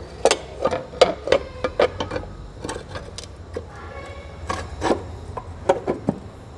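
A quick, irregular series of knocks and taps by hand on the metal primary (clutch) cover of a Royal Enfield Standard 350 as it is pressed and tapped home onto the engine case, some strikes ringing briefly.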